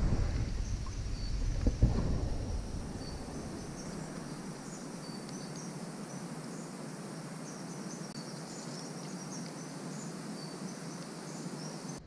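Forest ambience: insects chirping in short, high calls over a steady hiss. In the first two seconds a low rumble of wind on the microphone, with a single knock near the two-second mark.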